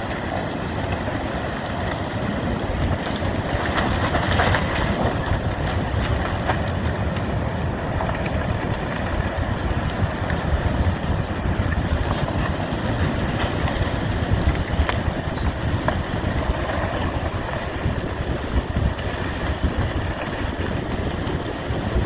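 Wind blowing across a phone's microphone, a steady rushing noise that grows a little louder about three seconds in.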